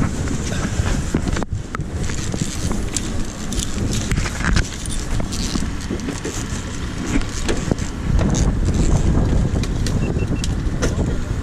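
Knocks, clicks and rattles of gear being handled on a fishing boat's deck as the landing net is picked up, over a steady low rumble.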